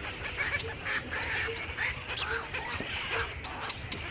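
Many birds calling at once: a busy chatter of overlapping short calls, with scattered sharp clicks and a short low note repeating about twice a second.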